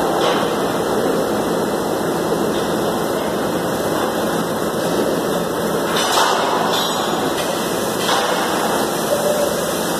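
Steady machinery din of a slaughterhouse processing line, with a few faint knocks about six and eight seconds in.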